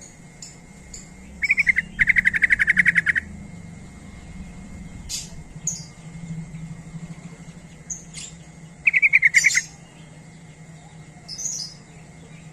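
Yellow-vented bulbul (trucukan) giving loud, rapid chattering trills: two bursts close together a second or two in, and another past the middle. Short high chirps sound between them.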